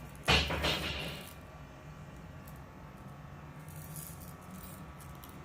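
Small plastic beads poured into a little pot, rattling for about a second.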